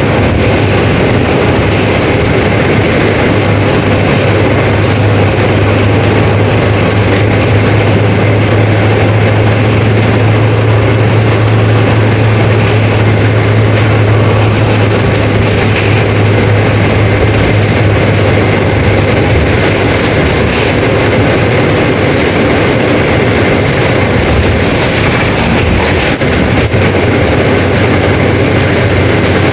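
Mercedes-Benz OF 1721 BlueTec 5 bus with its diesel engine running under way, with heavy road and body noise. A steady low engine drone holds one pitch for over ten seconds, then eases off.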